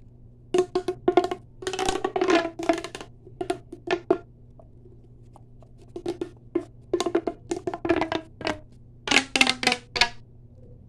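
Fast ASMR tapping on hard objects: quick, irregular runs of crisp taps with a hollow ring, broken by a short pause about halfway through.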